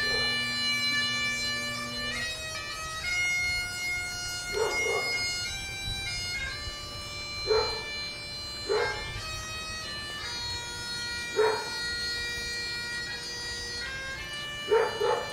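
Bagpipes playing a slow tune in long held notes. A dog barks about five times, each bark short and sharp and louder than the pipes.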